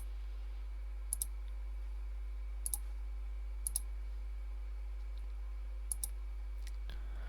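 Computer mouse clicking: a handful of quick double clicks, one to two seconds apart, over a steady low hum.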